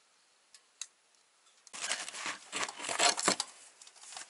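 Rustling and scraping of clothing and gear being handled close up, a burst of rubbing strokes that starts about halfway in and lasts under two seconds, after a couple of faint ticks.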